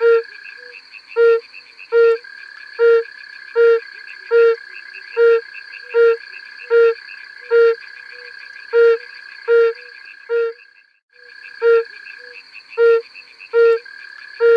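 Yellow-bellied toad (Bombina variegata) calling: a short hooting note repeated a little more than once a second. A steady high-pitched hum runs behind the calls and drops out briefly just after ten seconds.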